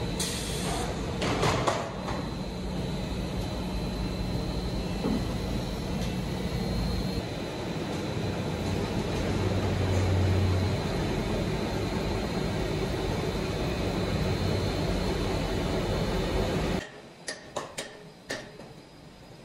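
Plastic-pipe factory machinery running, a continuous mechanical noise with a low hum and a faint high whine. A few seconds before the end it drops away abruptly, leaving a few sharp clicks or knocks.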